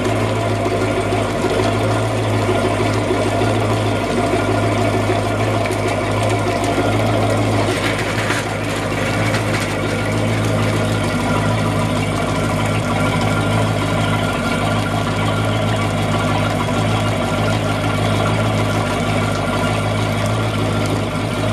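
Yamaha STR28 cruiser's inboard engine idling steadily, run with its sterndrive out of the water.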